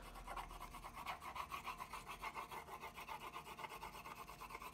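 Wax crayon scratching across paper in quick, even back-and-forth strokes as a large area is shaded in.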